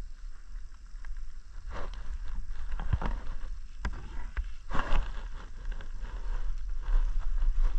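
Wind buffeting the microphone as a low, steady rumble, with a few sharp knocks and rustles from handling, one about three seconds in and a louder one near five seconds.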